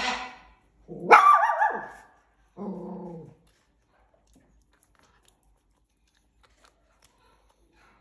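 Animal calls: three in a row, a short harsh one, then a loud squealing call that drops in pitch, then a shorter, lower-pitched call.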